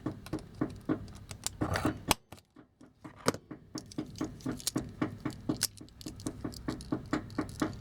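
A pin punch being tapped against a drilled rivet in a die-cast toy, giving rapid sharp metallic taps at about four a second, with a short pause about two seconds in.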